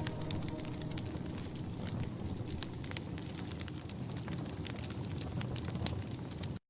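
Wood logs burning in a fireplace, with irregular sharp crackles and pops over a soft hiss. The sound drops out for a moment near the end.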